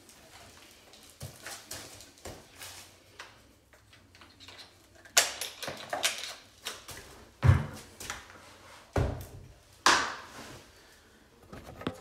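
Irregular handling knocks and clicks, faint at first, with several sharp loud knocks in the second half.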